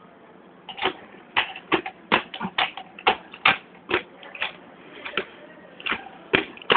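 Handheld grips clacking against the ground with each hand step as a person walks on his hands: a run of sharp, irregular clacks, a few a second, starting about a second in.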